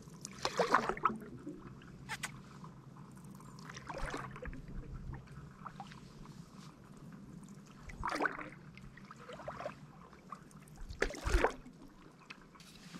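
Water splashing and sloshing around a kayak in short bursts every few seconds.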